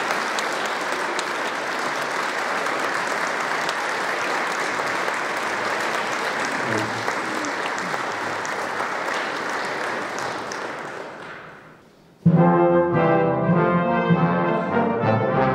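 Audience applauding for about eleven seconds, dying away; then, about twelve seconds in, brass music starts abruptly with sustained chords.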